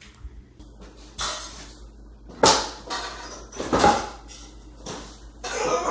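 Heavy solid-steel riding-mower frame clanking and scraping as it is being heaved up on end by hand: a string of separate metal knocks and scrapes, the loudest about two and a half and four seconds in.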